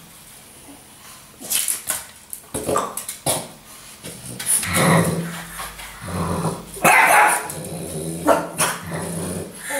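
French bulldog growling and barking in play at a moving broom: a few short barks, then a long low growl broken by louder barks about five and seven seconds in.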